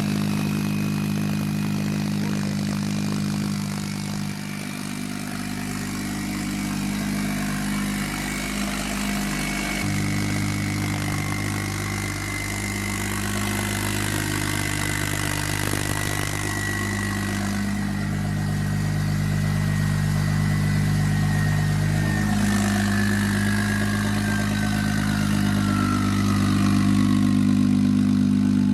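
BMW 335i's single-turbo N54 inline-six idling steadily, started up after a radiator swap. The engine note changes about a third of the way in. A thin high whine slowly falls in pitch toward the end.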